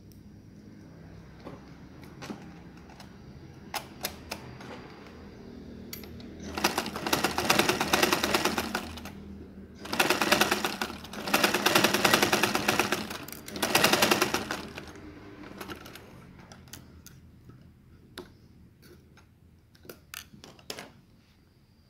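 Domestic sewing machine stitching in four short runs in the middle stretch, each a rapid even patter of stitches, with light clicks and taps of the fabric being handled before and after.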